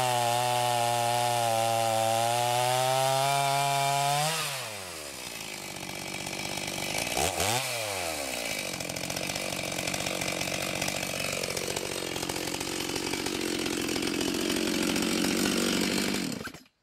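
Stihl MS290 chainsaw fitted with an aftermarket MS390 two-stroke engine, at full throttle under load cutting through a thick oak log. About four seconds in the throttle is released and the engine falls to idle. A few seconds later it gives one quick rev up and back down, then idles steadily until the sound cuts off suddenly near the end.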